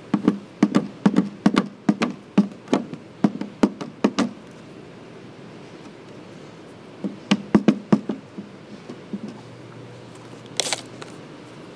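A run of light knocks and taps, about two to three a second, from a plastic squeegee working protective film down on a headlight lens. The knocks pause, then come again in a second, shorter run. Near the end there is a brief hiss.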